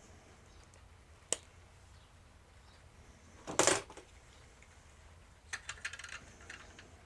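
Small plastic toy helicopter parts being handled: a sharp click about a second in, a brief scraping rustle in the middle, and a quick run of small clicks near the end.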